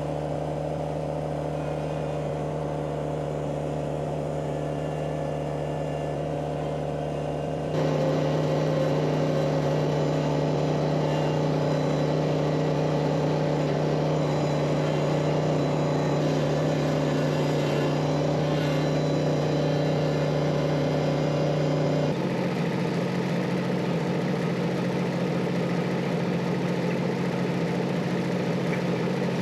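Kubota compact tractor's diesel engine running steadily. It gets louder suddenly about eight seconds in, then settles slightly higher in pitch and a little quieter about twenty-two seconds in.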